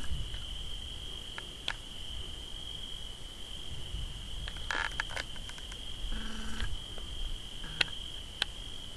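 Insects trilling in one steady, unbroken high tone, with a few faint sharp clicks scattered through it.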